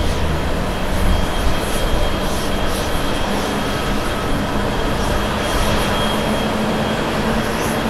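Jet engines of a Boeing 787 airliner rolling on the runway: a steady rushing noise with a faint, steady high whine.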